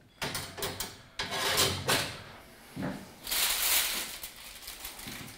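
Metal kitchenware being handled at a commercial oven: a few sharp knocks and clanks in the first two seconds, then a longer scraping slide about three seconds in, as the covered roasting pan and trays are moved.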